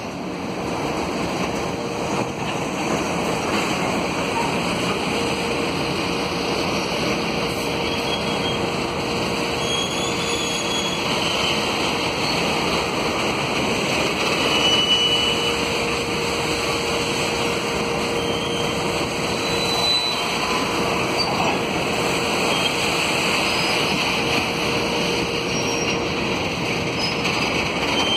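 Freight train of hopper wagons rolling past, a steady rumble of wheels on rail with a constant hum. Short high-pitched wheel squeals come and go throughout.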